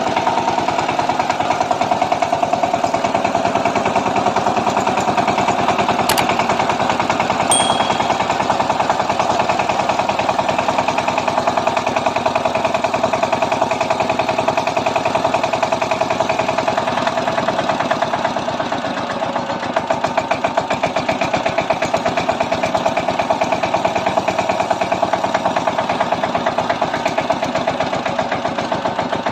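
Kamco power tiller's single-cylinder diesel engine running steadily with a rapid, even chugging while deep ploughing with dry-land tynes; the beat becomes slightly quieter and more distinct about two-thirds of the way in.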